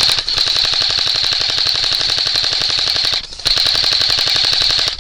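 Airsoft gun firing on full auto: a rapid stream of shots over a steady high whine. There is a short break about three seconds in, and the firing stops at the very end.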